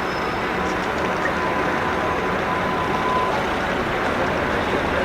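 Steady city street traffic noise, with a faint thin whine that holds for about two seconds in the middle.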